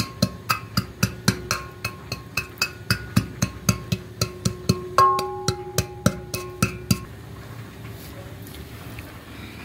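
Wooden pestle pounding walnut kernels in a metal cooking pot, about four strikes a second, each strike setting the pot ringing. The pounding stops about seven seconds in.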